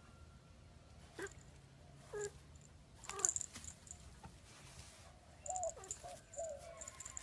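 Cat meowing: three short calls falling in pitch, about a second apart, then a quicker run of brief calls a couple of seconds later.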